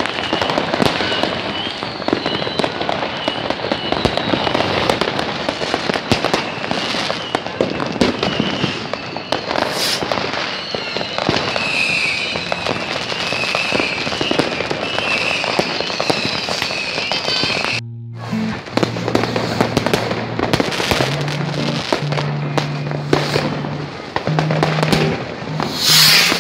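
Dense, continuous crackle and banging of many firecrackers and fireworks going off at once, with a high wavering whistle running above the cracks. About two-thirds of the way through, music with low sustained notes comes in, with the bangs continuing under it.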